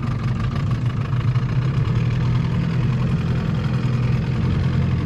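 6 hp Evinrude outboard motor running steadily at low speed, just shifted into gear.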